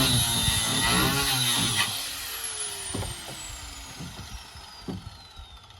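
Corded power cutting tool running at high speed for about two seconds, then released and spinning down, its whine falling steadily in pitch as it coasts to a stop. A few light knocks follow.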